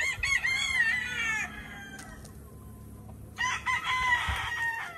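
Gamefowl roosters crowing: one crow at the start lasting about a second and a half, and a second one starting about three and a half seconds in that runs almost to the end.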